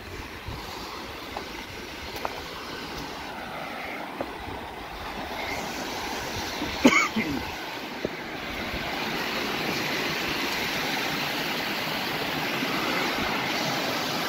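Small mountain stream rushing down sandstone slabs, a steady noise that grows louder partway through, with footsteps on loose rock and one sharp knock about halfway through.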